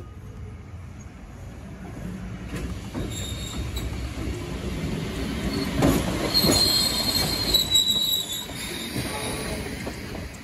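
Electric locomotive E34 hauling old steel passenger coaches rolls past close by, the rumble of wheels on rail growing louder from about two seconds in. It is loudest in the middle, where a high squeal rises over the rumble, then the coaches roll on past.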